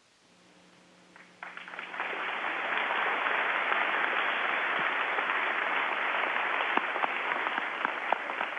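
An audience of students applauding. The applause swells in about a second and a half in and keeps going, with a few single claps standing out near the end. It sounds thin, cut off above the upper middle range as over a voice link.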